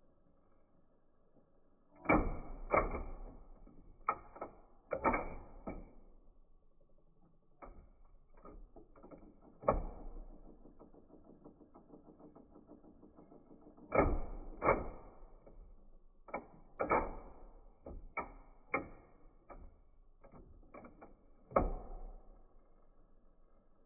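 Sony FC567 auto-reverse cassette deck mechanism switching play sides, heard slowed down: an irregular string of dull clunks and clicks as the head and pinch-roller assembly pulls back, the head turns over and the drive gears re-engage. About a dozen louder knocks stand out among smaller clicks.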